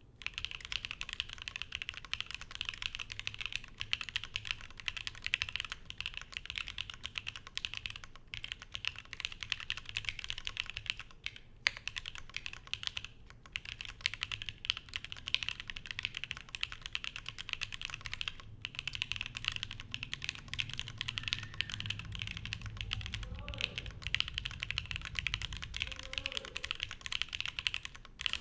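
Fox Lab Sandglass Ergo ergonomic mechanical keyboard being typed on steadily, with lubed and filmed Alpaca linear switches on an aluminium plate and GMK Maestro keycaps giving a dense run of keystrokes. The typing breaks off briefly a few times.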